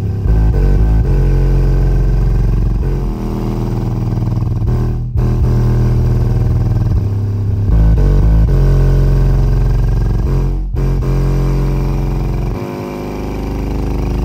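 KICKER L7X SoloX 12-inch subwoofer playing a bass-heavy music track in free air, with no enclosure, its cone flapping hard. Deep bass notes step from one pitch to the next, and the sound cuts out briefly twice.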